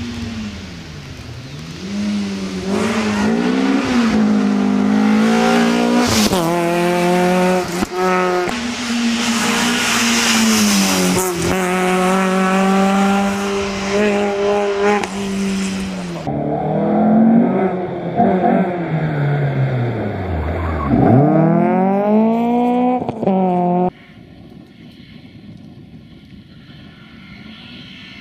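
Peugeot 306 rally car's four-cylinder engine revving hard as it passes at speed, its pitch climbing and dropping with each gear change, with tyre noise on the loose surface. The sound changes abruptly about 16 s in, and about 24 s in drops to the same engine heard much farther off and quieter as the car approaches again.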